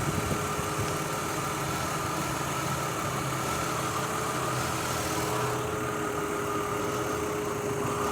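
2003 Mazda Tribute's V6 engine idling roughly with a misfire, which the owner blames on ignition coils arcing from oil leaking past the valve cover gaskets.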